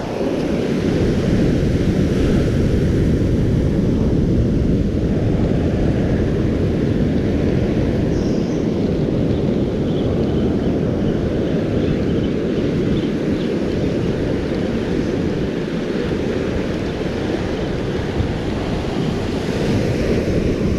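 Wind buffeting the microphone over the steady wash of ocean surf on a beach, a loud, even rumble with no distinct events.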